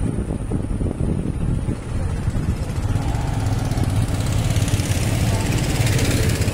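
An engine runs steadily with a low hum, and from about halfway through a rushing noise swells louder towards the end.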